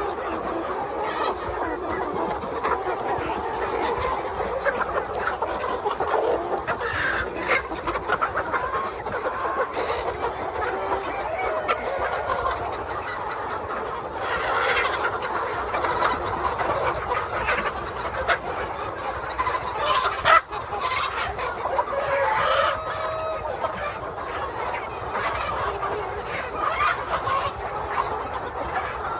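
A flock of chickens clucking steadily, with a rooster crowing once about two-thirds of the way through. A single sharp knock stands out a little before the crow.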